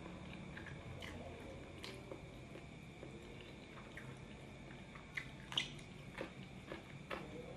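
Person eating wet noodles with the hands: wet mouth smacks and chewing, with scattered small clicks, the sharpest a little after five seconds in. A steady low hum runs underneath.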